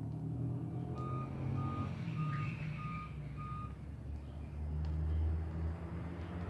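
Vehicle reversing alarm beeping, five short beeps at one steady pitch a little over half a second apart, then a pause, over a low engine rumble.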